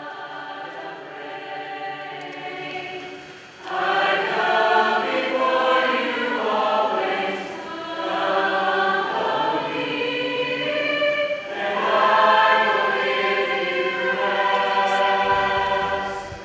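A choir singing a hymn, soft at first and then fuller from about four seconds in, fading out near the end.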